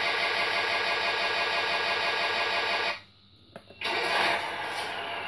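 Simulated engine start sequence from a 1/14 scale RC hydraulic excavator's sound module, played through the model's own speaker. A steady mechanical engine sound cuts off suddenly about three seconds in. After a short near-silent gap with a click, the engine sound comes back slightly quieter and keeps running.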